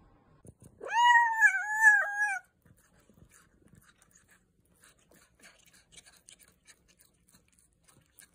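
A cat's single long meow about a second in, rising at the start and then wavering for about a second and a half. Faint small clicks follow as a cat chews a strawberry.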